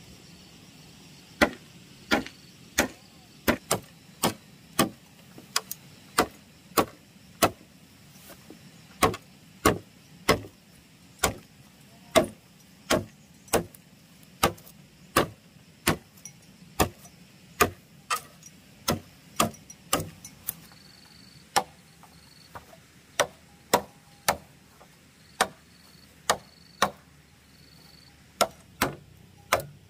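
A steady series of sharp tool strikes on bamboo, about one to one and a half a second, with a few brief pauses.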